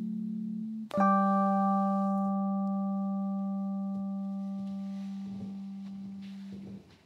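Music ending: a held chord dies away, then about a second in a ringing chord is struck and fades slowly, stopping shortly before the end.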